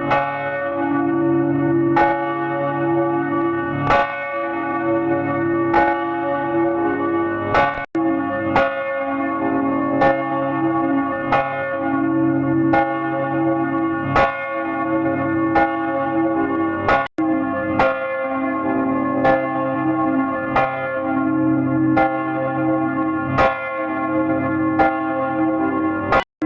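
Church bell tolling, struck about every one and a half to two seconds, each stroke ringing on into the next over a lasting low hum. The sound drops out for an instant twice, where one bell recording is spliced to the next.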